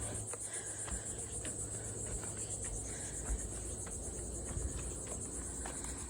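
A steady chorus of insects, crickets or similar, trilling high and fast without a break.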